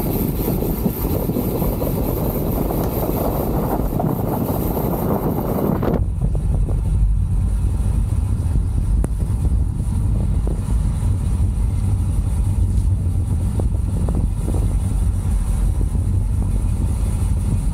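Wind buffeting the microphone of a camera mounted on a moving road bike, a steady rush with some tyre noise from the tarmac. About six seconds in the sound changes abruptly to a deeper, lower rumble.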